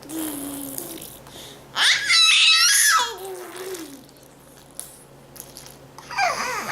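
Baby babbling and squealing: a loud, high-pitched squeal about two seconds in slides down into a low drawn-out babble, and another squeal rises near the end.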